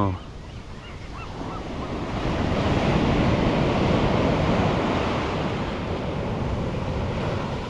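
Ocean surf washing in, swelling to its loudest about three seconds in and then easing slightly, with wind on the microphone.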